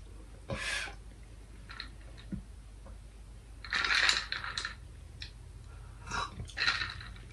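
Spoon scraping and clinking inside a plastic cup of iced milk tea as boba pearls are spooned out, in a few short scrapes, the longest around four seconds in and another near the end.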